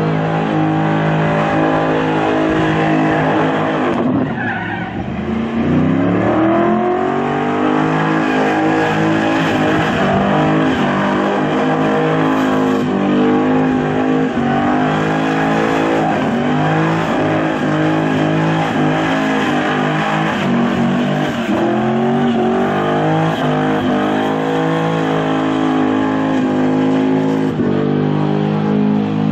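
Holden Commodore engine held at high revs during a burnout, rear tyres spinning and smoking on the pad. About four seconds in the revs drop sharply and climb back up, and they dip briefly a few more times after that.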